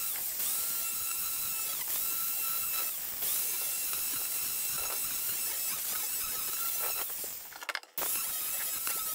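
Angle grinder with a wood-carving disc grinding into a wooden log: a steady whine over a hiss, broken by short dips every second or two as the disc bites and lifts. The sound cuts out briefly near the end.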